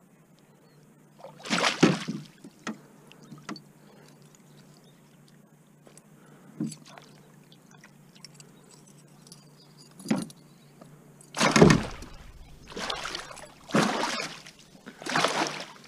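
Water splashing in a landing net at the boat's side as a large northern pike is unhooked by hand, in several short separate splashes, the loudest and most frequent in the last few seconds.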